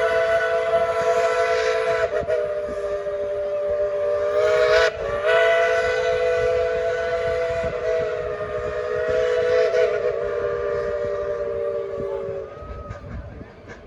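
Steam locomotive chime whistle on 4-6-0 No. 12, sounding a chord of several notes in a run of long blasts with short breaks between them. It stops about twelve and a half seconds in.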